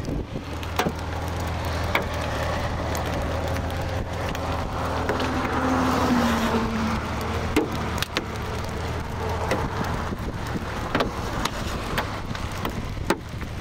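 A car running, with a steady low hum and rushing road and wind noise that swells about six seconds in. The hum stops a little after halfway. Scattered sharp ticks sound throughout.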